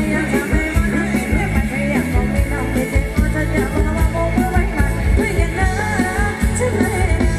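Thai ramwong dance music from a live band: a steady beat with heavy bass and a singer's voice over it.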